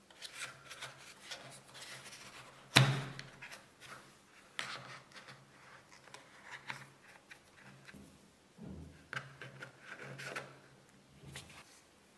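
Cotton-gloved hands handling a phone's cardboard box, tray and paper insert: faint rubbing and rustling of paper and cardboard with small clicks, and one sharp knock nearly three seconds in.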